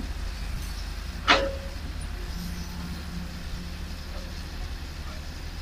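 Loaded light dump truck's diesel engine running with a steady low rumble as it drives off along a dirt haul road, with one sharp clank and a brief ring about a second in.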